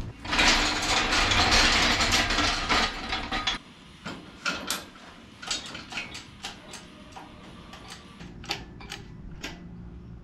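A loud rushing noise for about three seconds, then scattered metallic clicks and knocks as tools and bolts are worked on the car's body.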